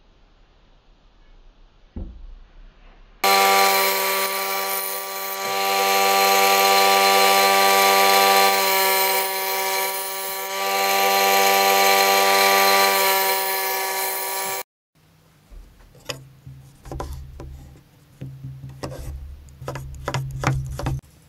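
Bench grinder running steadily with the steel knife blade held to its wheel: a loud, even hum with a hiss of grinding, which stops abruptly. Then a kitchen chopping knife slicing a red pepper on a wooden cutting board, a run of quick, sharp knocks of blade on board.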